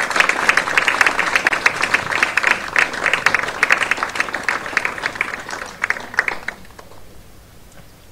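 Audience applauding, with dense clapping that tapers off and stops about six and a half seconds in.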